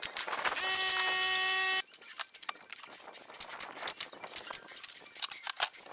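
A power drill runs at a steady high speed for about two seconds and cuts off abruptly, followed by light clicks and knocks of wood and tools being handled.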